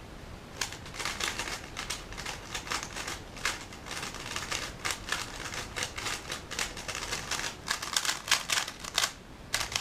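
A speedcube being turned fast by hand: rapid flurries of small plastic clicks and clacks, with short pauses between bursts.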